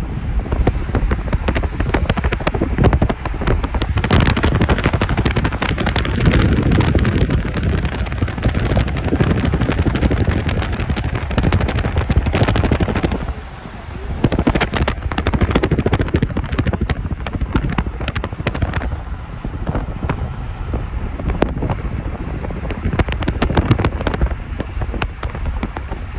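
Snowstorm wind buffeting the microphone: a loud, rumbling rush full of sharp crackles, easing for a moment about halfway through before gusting up again.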